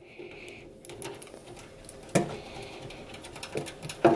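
Screwdriver working the screw out of a PC expansion card's metal mounting bracket: small metallic clicks and scrapes, with two sharper knocks, one about two seconds in and one near the end.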